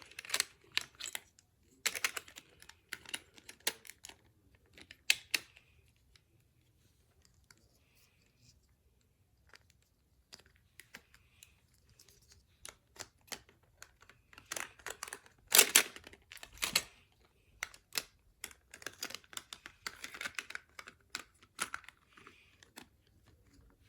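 Irregular small clicks and taps of plastic toy parts being handled and worked on, with a quiet pause partway and a louder clatter a little past the middle.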